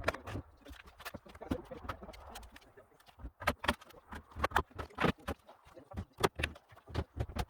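Irregular sharp knocks and clacks, several a second, from timber being worked in a shed build, thickest in the second half.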